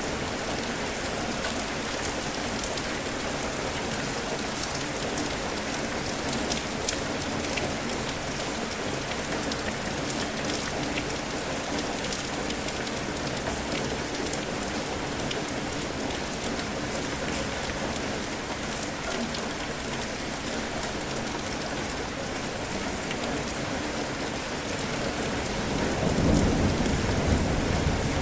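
Steady rain falling, a dense even hiss with scattered drops pattering close by. About two seconds before the end, a low rumble of thunder swells in.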